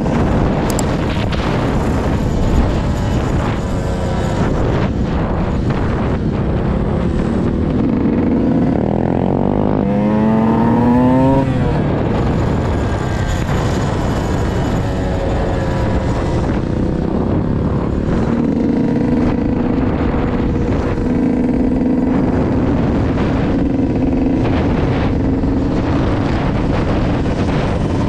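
Yamaha YZ125's two-stroke single-cylinder engine running under way, revving up in two rising pulls about eight to eleven seconds in, then holding a steady note while cruising.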